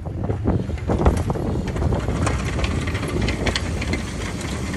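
Straight-piped 6.5 L Detroit Diesel turbo-diesel V8 of a Chevrolet K2500 plow truck rumbling with a crackly exhaust as the truck drives past, getting louder right at the start.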